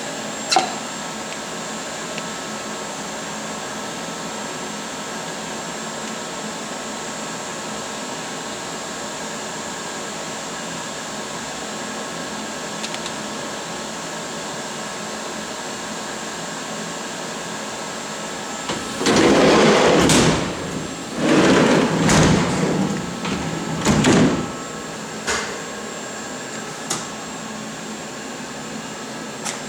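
Bridgeport vertical machining centre running with a steady hum. About two-thirds through come several loud bursts of rushing noise and a few sharp clicks as an Erowa pallet is loaded and clamped.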